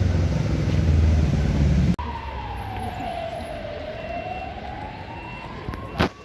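A heavy road vehicle's engine rumbles loudly, cut off abruptly about two seconds in. Then an emergency vehicle siren wails in the distance, one slow tone that falls and rises again, with a sharp knock near the end.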